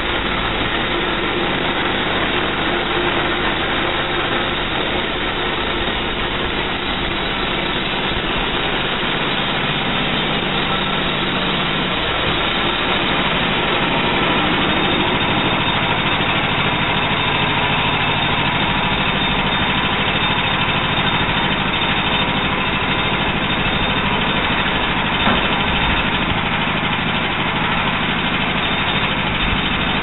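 Homemade band sawmill's 11-horsepower gas engine running steadily at speed, driving the band blade through a log, with a slight change in the engine's note about twelve seconds in.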